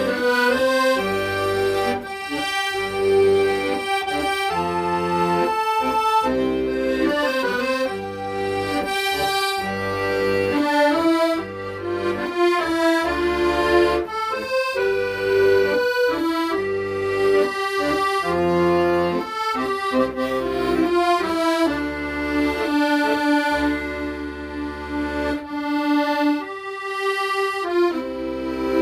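Accordion playing a slow, sustained melody in chords over low, regularly pulsing left-hand bass notes.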